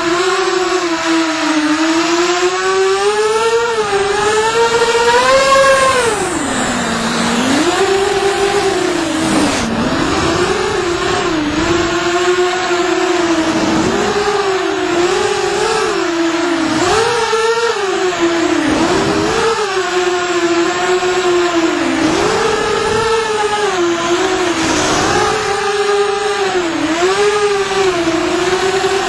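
FPV quadcopter's motors and propellers whining, the pitch constantly rising and dipping with the throttle. It climbs higher about five seconds in, drops sharply a second later, then keeps wavering up and down.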